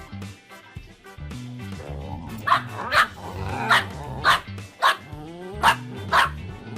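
A dog barking repeatedly, a run of sharp barks at about two a second starting about two seconds in, over background music.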